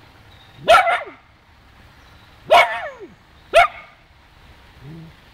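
Small dog barking at a hedgehog: three sharp barks, the second and third about a second apart.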